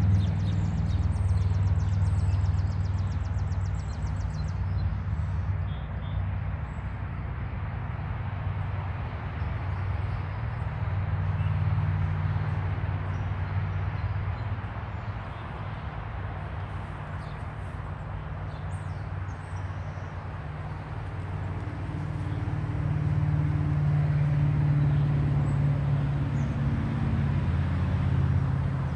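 A vehicle engine running with a steady low hum that swells and fades a couple of times.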